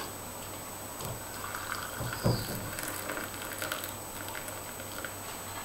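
Just-boiled water poured from a kettle over sliced onion in a cup: a faint, steady trickle of water, with a light knock about two seconds in.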